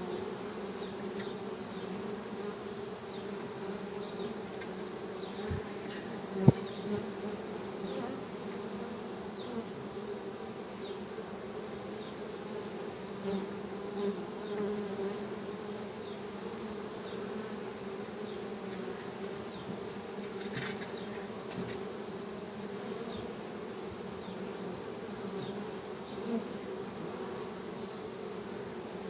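Honey bees buzzing in a steady drone, with a single sharp click about six seconds in.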